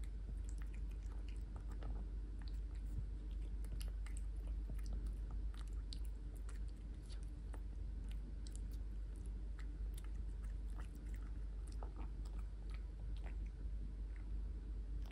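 Persian cat chewing shredded cooked chicken breast, with many small irregular clicks of eating over a steady low hum.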